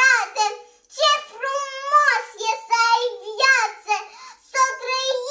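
A young girl's high-pitched voice reciting a poem in Romanian, in a lilting, sing-song declamation with pitch rising and falling and short pauses between phrases.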